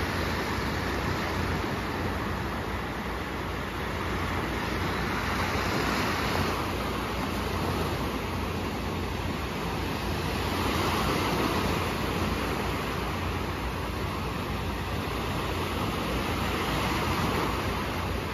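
Small sea waves breaking and washing up a sandy shore in a steady hiss, swelling a little every five or six seconds as each wave comes in.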